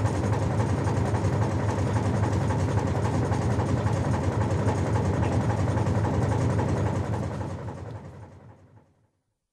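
Ship's below-deck ambience: a steady low engine hum and rumble, fading out over the last couple of seconds to silence.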